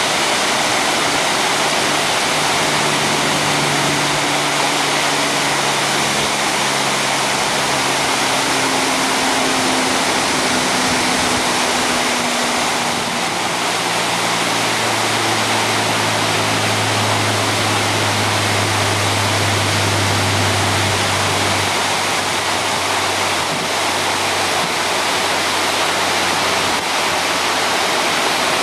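Water falling steadily down a partly frozen waterfall: an even, unbroken rushing noise.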